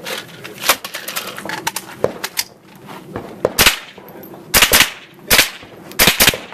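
AR-style semi-automatic rifle fired in a string of sharp shots. There is one shot about a second in, then after a pause a run of quick shots, several coming in close pairs, over the last three seconds.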